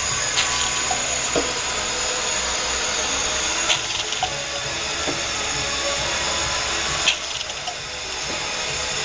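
Vacuum bottle-filling machine running with a steady hiss as liquid is drawn into small bottles under its filling heads. A few sharp clicks come from bottles being set against and pulled off the heads, the loudest about seven seconds in.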